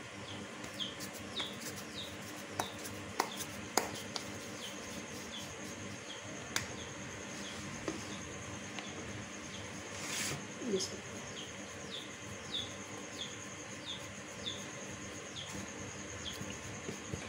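A small bird chirping a short falling note over and over, about every half second, with a faint steady high whine behind it. Scattered soft taps and knocks from hands pressing a ball of dough flat on the counter, the sharpest about three to four seconds in, and a brief rustle about ten seconds in.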